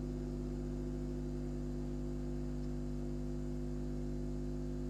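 Steady hum with a few constant low tones and a faint hiss, from a hot air rework station's fan running on as the station cools down before switching itself off.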